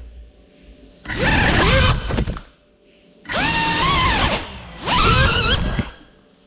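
GEPRC FPV quadcopter's brushless motors whining in three short bursts, each rising in pitch and then holding, as the crashed drone is flipped back over.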